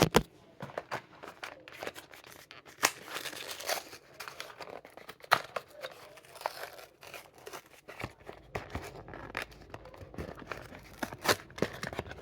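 Hot Wheels blister pack being torn open by hand: the card tears and the plastic blister crinkles, with scattered sharp clicks and snaps.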